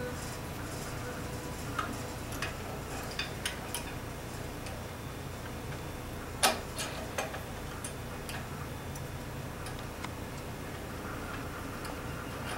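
Scattered clicks and knocks of an aluminium bandsaw fence and its clamps being shifted and adjusted on the metal saw table, the loudest knock about six and a half seconds in.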